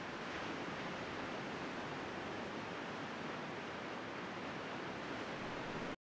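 Steady hiss of surf breaking along a beach, with no distinct waves standing out, cutting off suddenly at the end.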